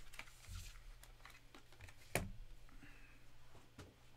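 Quiet handling of foam card padding being pulled apart: faint rustling with a few light clicks and taps, the sharpest about two seconds in.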